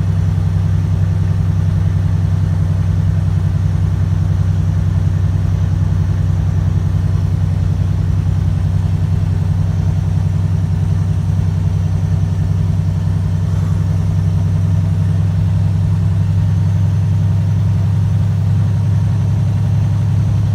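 Semi truck's diesel engine droning steadily as heard inside the cab while driving, a constant low hum with no change in pitch.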